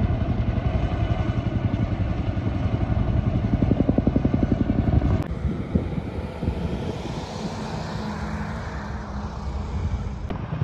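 Engine running with a steady low rumble and fast pulsing; about five seconds in the sound cuts to a quieter rumble with more hiss.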